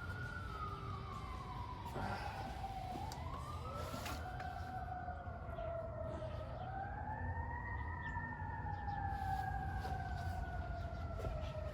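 Emergency vehicle siren in a slow wail, its pitch rising and falling over several seconds at a time, over a steady low rumble. A couple of sharp clicks come about two and four seconds in.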